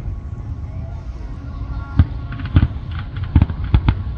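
Aerial fireworks shells bursting with deep booms: quieter for the first two seconds, then about five bangs in quick succession over the last two seconds.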